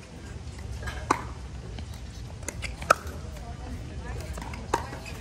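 Sharp, hollow pops of a plastic pickleball being struck or bouncing, four in all, spaced irregularly. The loudest comes about three seconds in. Under them runs a steady low rumble.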